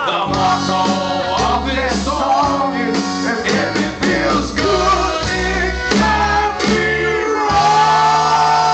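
Live rock band playing: electric guitars, bass and drums with men singing into microphones, the band holding one long sustained note near the end.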